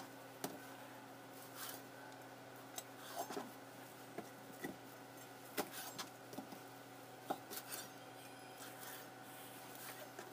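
Irregular light taps and scrapes of a kitchen knife on a plastic cutting board as strips of dried tofu are sliced and moved about.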